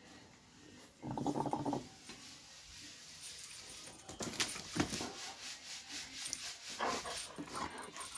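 Doberman pinscher making a short vocal sound about a second in, then clicking and scuffing noises as the dog comes running up and brushes against the phone near the end.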